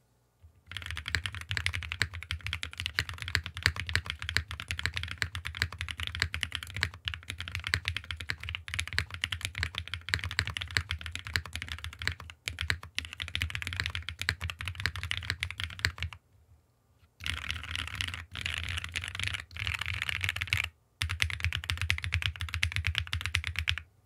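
Continuous typing on a mechanical keyboard fitted with stock BSUN RAW linear switches (long-pole, polycarbonate top housing, nylon bottom housing, UHMWPE stem, 60 g spring), with many keystrokes a second. The typing breaks off for about a second a little past two-thirds of the way through, and again for a moment a few seconds later.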